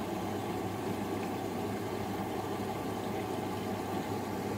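Front-loading washing machine in its wash phase, the drum turning the soaked, fully loaded laundry: a steady motor hum with water swishing in the drum.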